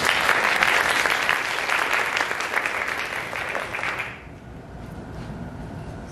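Audience applauding, which dies away about four seconds in.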